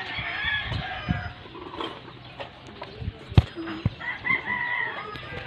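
A rooster crowing, twice, with a few sharp knocks in between, the loudest about three and a half seconds in.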